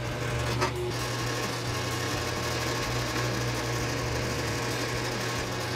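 Drill press running with a steady motor hum while its twist bit bores into a wooden board. It is drilling an overlapping hole to shift a misdrilled countersunk screw hole over a couple of millimetres.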